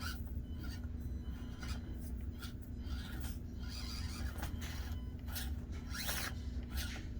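Axial SCX24 Deadbolt micro crawler working over the course: short scratchy scrapes and whirs as its small electric drivetrain and tyres grip and scrabble on the obstacle, over a steady low hum.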